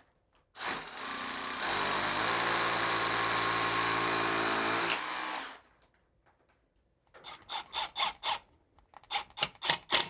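Rotary hammer drill with a dust-collection attachment drilling into a concrete wall, starting about half a second in, running harder about a second later and stopping after about five seconds. A quick run of sharp clicks and taps follows near the end.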